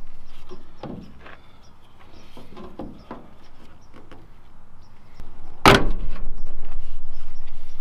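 Plastic tail light housing being pulled off a pickup's bed pillar: a few small clicks and creaks, then one loud snap about three-quarters of the way through as it pops free of its retaining clips. A steady low rumble follows the snap.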